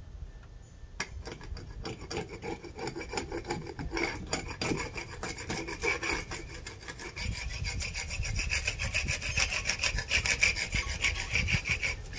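Hand paint scraper rasping along a weathered, painted cedar beam in quick repeated strokes, lifting off the flaking paint. The strokes get louder about seven seconds in.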